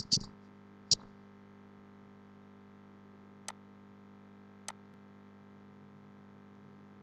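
Computer mouse clicks: one sharp click about a second in, then two fainter clicks a little over a second apart, over a steady low electrical hum.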